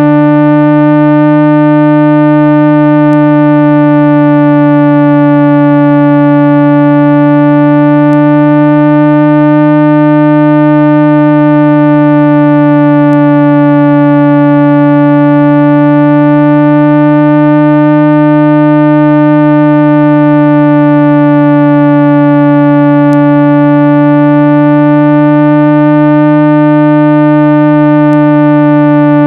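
Loud, steady electronic speaker-cleaning tone, a low hum with many overtones that slowly wavers up and down in pitch every several seconds. It is played to vibrate a phone speaker's diaphragm and push water and dust out of a muffled speaker.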